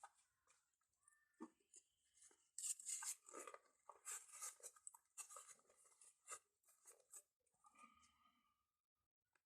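Close-miked eating sounds of someone chewing pizza: an irregular run of short crunchy and wet mouth clicks.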